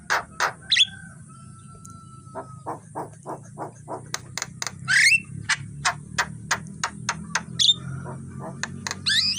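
Javan myna calling: a run of short harsh chattering notes, about three a second, broken by a few sharp rising whistles and a brief steady whistle near the start.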